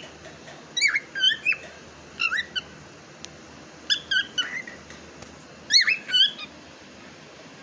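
Cockatiel whistling and chirping in short, quick notes that swoop up and down in pitch, in four brief bursts about a second or more apart.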